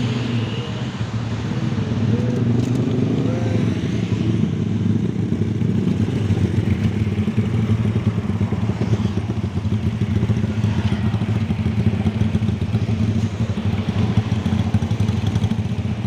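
Honda Tiger motorcycle's single-cylinder four-stroke engine running steadily under way, a continuous low drone.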